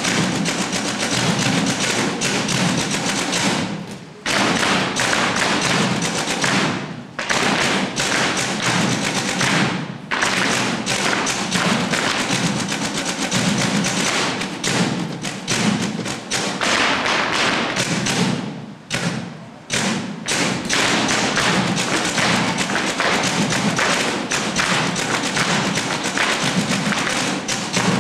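Flamenco dancer's footwork (zapateado): fast, dense heel and toe stamps on the stage floor over music, breaking off briefly a few times.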